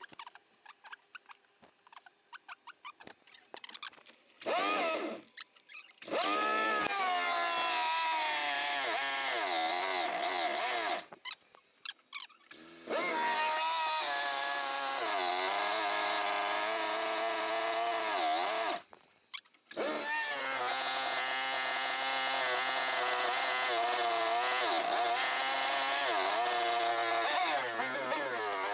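Light clicking and fiddling, then an engine with a freshly adjusted carburetor running and revving, its pitch wavering up and down with the throttle. It cuts out abruptly twice and picks up again.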